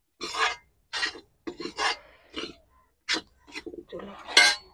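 Spatula scraping and stirring puffed rice coated in gram flour around a kadhai, a run of short separate scrapes with the loudest near the end.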